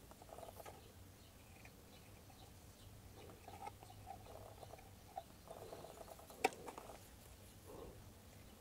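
Faint scratching and light tapping of a small screwdriver working in among the plastic gear wheels and housing of an opened food chopper, with one sharp click about six and a half seconds in.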